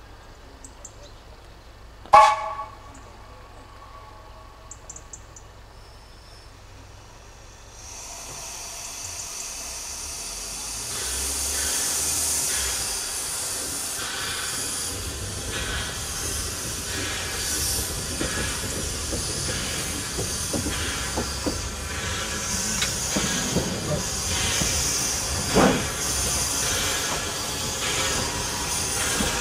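Corris Railway No 7, a Tattoo-class narrow-gauge steam locomotive, approaching slowly: a steady steam hiss and the sound of the engine working come in about eight seconds in and grow louder, with scattered knocks. Before that, over a quiet background, a single short, loud ringing clank about two seconds in.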